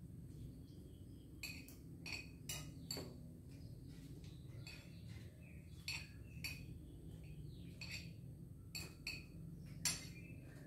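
A spoon clinking and scraping against a plate during a meal, in scattered light taps, the loudest one near the end.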